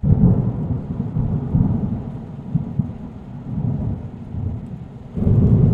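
Deep rolling rumble like thunder, loud at the start, easing off, then swelling again about five seconds in.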